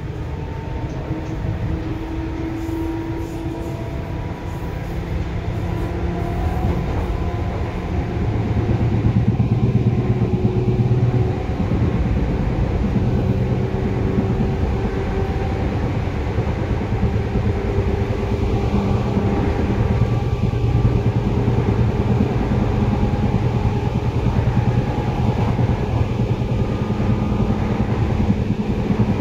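Seibu 2000 series electric train running, heard from inside the car above its line breaker: steady wheel and motor rumble with several steady whining tones, growing louder over the first nine seconds or so and then holding.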